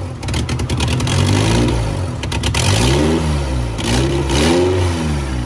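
Honda B20 four-cylinder engine running just after its first start, revved by hand at the throttle body so the revs rise and fall several times. The engine won't hold an idle on its own; the owner blames the idle control valve.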